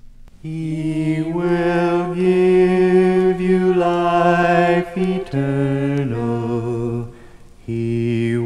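Gospel music from a vinyl record: the instrumental-free-sounding intro of a song, long held chords with a slight vibrato that begin about half a second in, change several times, and break off for a moment near the end before starting again.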